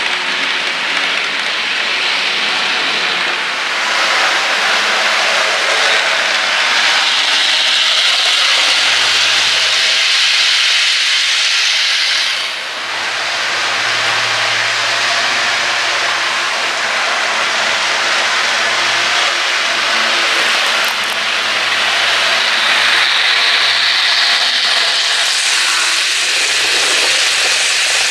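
HO scale model trains running on the layout: a steady whirring of locomotive motors and wheels on the rails, dipping briefly about twelve seconds in.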